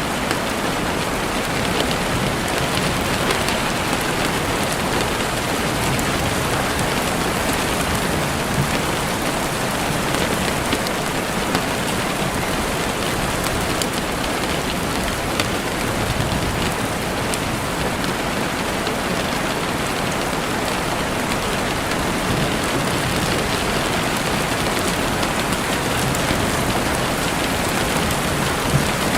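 Steady rain falling, an even hiss with scattered sharp ticks throughout.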